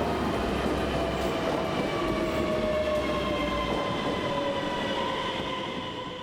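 Electric train running through the station with a rumble and a whine that slowly falls in pitch as it slows; the rumble drops away about two thirds in, and the sound fades near the end.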